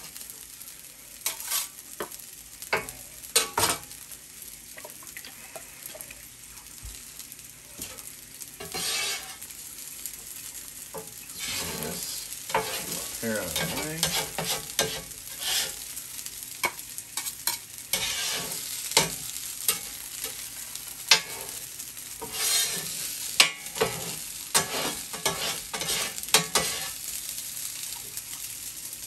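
Metal spatula and food-mover shovel scraping and tapping irregularly on a hot steel flat-top griddle as cold cooked rice is chopped and stir-fried. A steady sizzle runs underneath.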